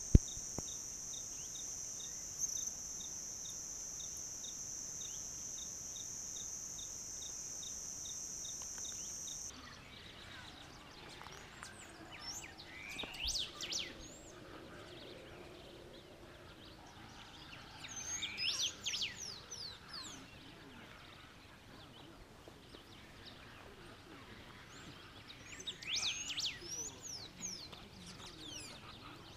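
Chaco forest soundscape: a steady high-pitched insect trill with a regular tick about three times a second, cutting off about nine seconds in. Birds then call in three bursts of sweeping, chattering notes over a quiet background.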